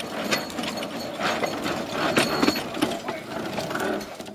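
Handcar running along miniature railroad track: a steady rumble with irregular clicks and clacks from the wheels on the rails and the running gear.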